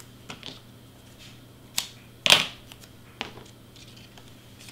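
Cardstock pieces being handled and set down on a cutting mat: a few short paper rustles and taps, the loudest about two seconds in.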